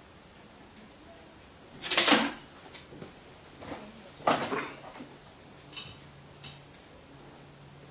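Wooden knocks and clatter as the wooden release board holding back the row of wooden pendulum balls is handled and pulled away to set the pendulums swinging. One loud knock comes about two seconds in and a second a little after four seconds, followed by a few faint clicks.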